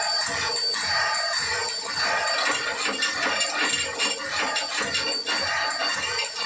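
Several sound-equipped model train locomotives playing through their small onboard speakers at once: a dense, steady jumble of ringing and engine sounds, with a thin high whine throughout.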